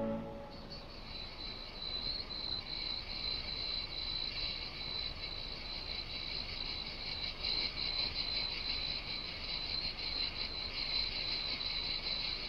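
Insects chirring steadily and high-pitched in a fast, even trill, starting about half a second in.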